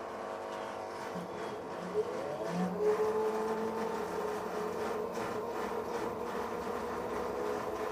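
LG washing machine drum and motor spinning up on a test spin, freshly fitted with new drum bearings. A steady whine rises in pitch about two to three seconds in, then holds steady.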